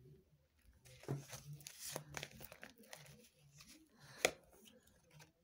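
Faint rustling and sliding of tarot cards as they are drawn from the deck and laid down on a cloth, with one sharp card snap about four seconds in.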